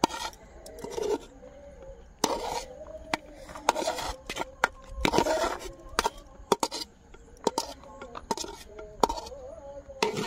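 Metal serving spoon scraping and clinking against a cooking pot as freshly cooked biryani is scooped out. It comes as an irregular series of short scrapes and sharp clicks.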